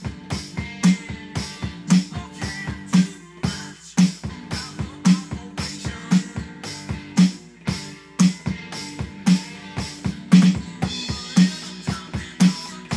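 Rock drum kit playing a busy improvised groove with fills, a strong hit about once a second among quicker strokes, mixed with sustained pitched music.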